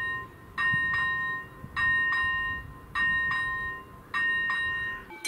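Level-crossing warning bell ringing at a Czech railway crossing: a double-struck chime that rings on briefly and fades, repeated at a steady pace of a little over one a second, warning that a train is coming.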